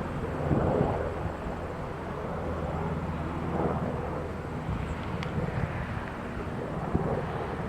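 Distant aircraft flying overhead: a steady low engine drone that swells slightly now and then.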